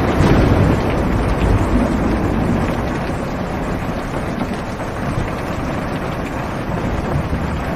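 Heavy rain drumming on a car's roof and windows, heard from inside the cabin as a dense, steady hiss. A low rumble of thunder swells in the first couple of seconds and fades away.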